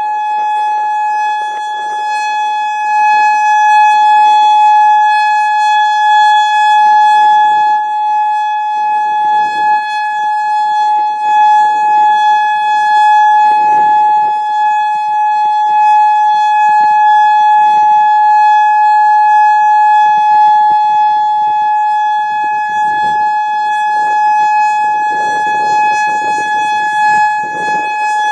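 Federal Signal Modulator 4016 outdoor warning siren sounding a loud, steady tone that holds one pitch throughout. Gusts of wind buffet the microphone.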